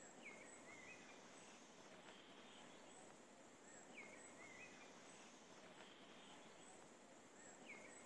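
Quiet woodland ambience with a faint songbird repeating the same short phrase three times, about every four seconds.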